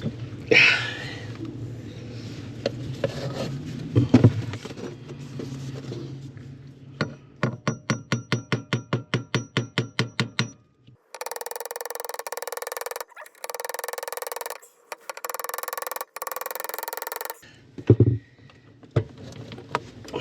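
Knocks and clunks from fitting a heavy electric windlass motor assembly onto its tight shaft, including one loud knock, then a run of quick, even taps at about five a second for some three seconds. This is followed by several seconds of thin, chopped sound with no bass, and a single thump near the end.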